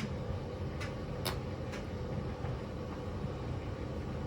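Washing machine running with a steady low rumble, with a few light clicks about a second in.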